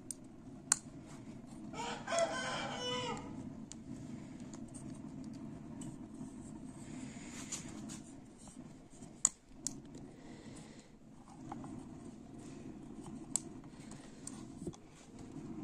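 A rooster crows once, about two seconds in, over a steady low hum. A few sharp clicks are scattered through.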